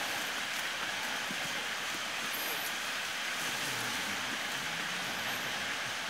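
Footsteps of hikers on a rocky dirt trail, faint under a steady rushing hiss.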